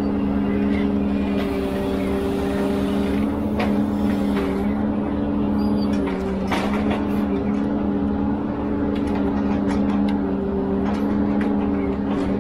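Ponsse Elephant forwarder's diesel engine running steadily while the crane works, with a few light knocks.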